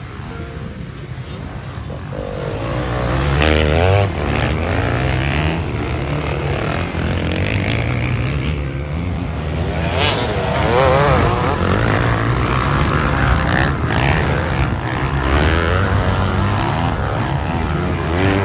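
Several motocross dirt bikes racing, their engines revving up and down with quick rises and drops in pitch as the riders work the throttle and shift. The sound swells about three seconds in and again about ten seconds in as bikes come close.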